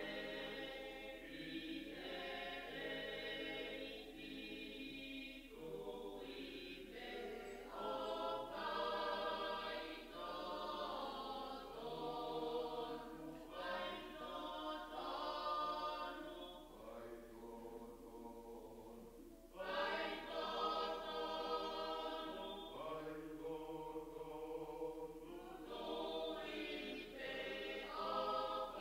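A choir singing a hymn in long held phrases, growing louder about two-thirds of the way through.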